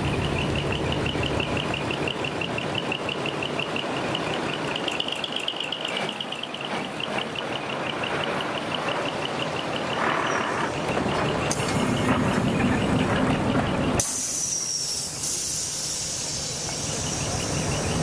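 A diesel truck engine runs, then a long hiss of compressed air takes over for the last few seconds as the low engine sound drops away. A rapid, even chirping, about five pulses a second, goes on throughout.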